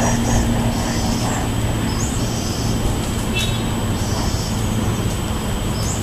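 Steady low rumble of distant road traffic, with a bird repeating short high trills every second or two over it.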